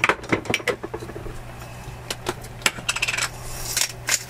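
Hand-twisted spice grinder being turned over a pot: a series of sharp, irregular clicks and crunches, with a quick run of clicks about three seconds in.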